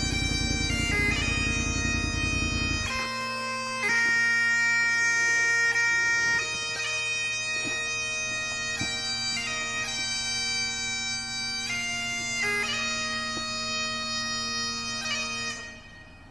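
Bagpipes playing a slow tune over their steady drones. A low rumble underneath stops about three seconds in, and the pipes fade out near the end.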